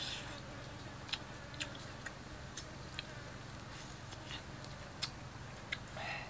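Irregular soft clicks and smacks of people eating with their fingers, about one or two a second, over a steady low hum. A brief vocal sound comes near the end.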